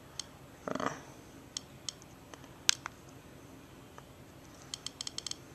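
Click wheel of a 5th-generation iPod Video ticking as its menus are scrolled and selected: scattered single clicks, then a quick run of clicks near the end. A brief soft noise comes just under a second in.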